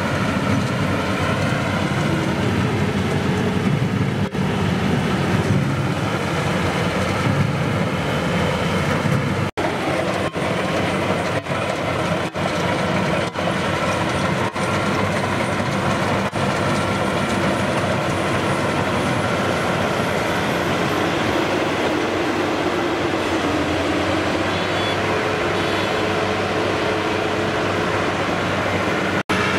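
Rice combine harvester at work cutting and threshing paddy: a steady, loud mechanical drone of the engine and threshing drum, with a few brief breaks.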